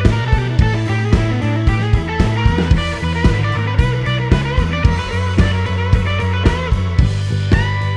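Background instrumental music with guitar over a steady drum beat and bass line.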